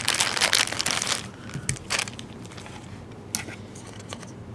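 Clear plastic packaging sleeve crinkling as a hard plastic phone case is pulled out of it. The crackle is dense for about the first second, then thins to a few scattered clicks from handling the case.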